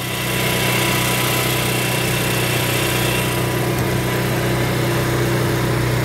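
Onan QG 4000 RV generator running steadily at constant speed, with an even hum and hiss, after its no-start fault was repaired.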